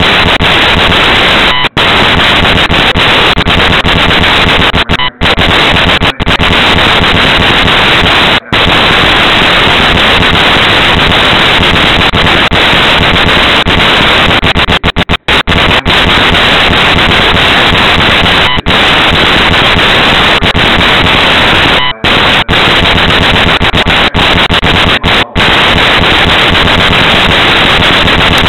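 Loud, constant crackling static from an overloaded, low-quality recording that drowns out any other sound, broken by a dozen or so brief dropouts to silence.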